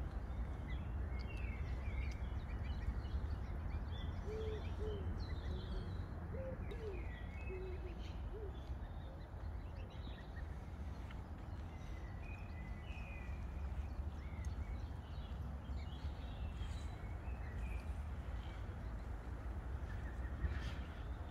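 Lakeside park ambience: small songbirds chirping and singing throughout over a steady low rumble, with a short run of low, soft hooting calls about four to nine seconds in.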